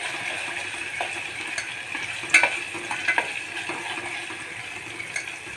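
Onion-coconut masala paste sizzling as it is sautéed in hot oil in a metal pot, stirred with a metal spoon that clinks and scrapes against the pot a few times, the loudest knock about two and a half seconds in.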